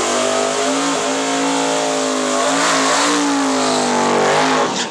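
Twin-turbocharged Chevy II drag car at full throttle on a quarter-mile pass, its engine note held high and wavering slightly in pitch. The sound drops off abruptly near the end.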